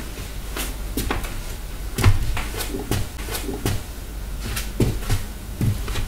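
Footsteps on the floor, a run of irregular thuds and knocks, over a steady low hum from the electric standing desk's dual leg motors, with the recording amplified so the motor can be heard.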